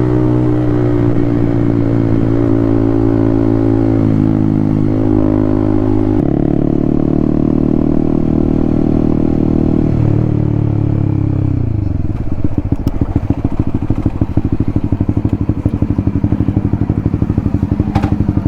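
Honda CB150R's single-cylinder engine running at a steady speed on the road. About ten seconds in, the revs drop as the bike slows. It then settles into an idle with an even, regular pulse.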